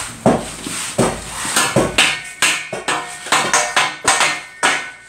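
Hammer blows on metal, struck irregularly about three times a second, some with a short metallic ring.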